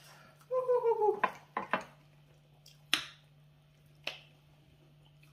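People eating injera by hand: a short hummed voice sound about half a second in, then a few sharp clicks and smacks spread over the next few seconds. A steady low electrical hum runs underneath.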